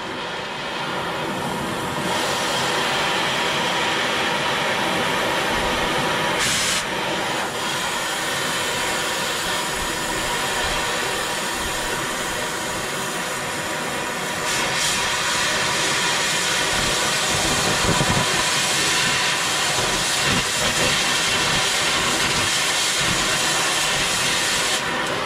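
Oxy-fuel cutting torch hissing steadily as it heats and then cuts through a rusted bolt holding a dump bed to a truck frame. About halfway through, the hiss grows louder and sharper as the cut begins.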